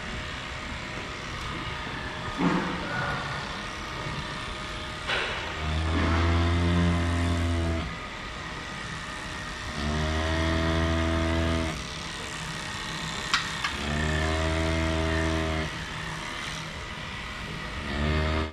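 Cattle mooing three times, each a low, steady moo of about two seconds, a few seconds apart, with a few sharp clicks in between.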